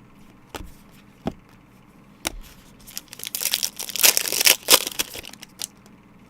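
Plastic or foil packaging crinkling and rustling as trading cards are handled. A few light clicks come first, then a denser stretch of crinkling in the middle.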